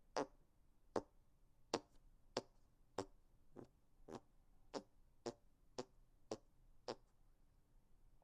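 Fart sounds made with the hands: a run of about a dozen short, sharp pops of squeezed-out air, a little under two a second.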